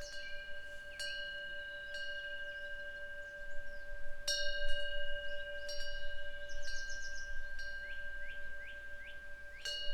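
Korean temple eave wind bell (pungyeong) ringing: its clapper strikes it a few times, about a second in, about four seconds in and near the end, each strike leaving long, steady ringing tones. Birds chirp between the strikes.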